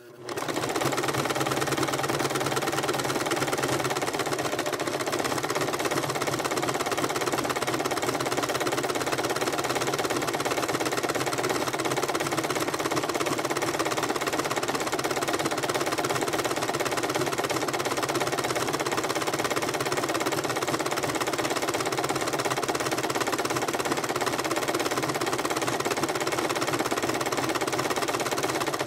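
Electric sewing machine running steadily at speed, stitching through a coil of fabric-wrapped rope; it starts a moment in and keeps going without a pause.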